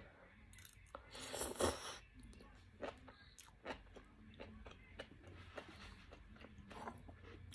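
Chewing a mouthful of enoki mushrooms close to the microphone: a louder crunchy stretch about a second in, then a run of soft, irregular crunching clicks.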